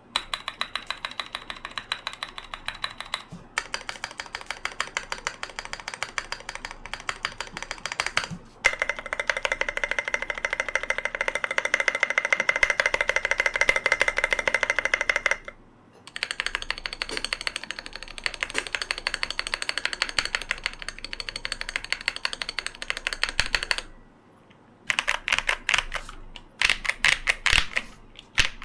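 Fast typing on a Cyberboard R3 custom mechanical keyboard with Hey switches: rapid keystroke clacks in several runs, broken by brief pauses.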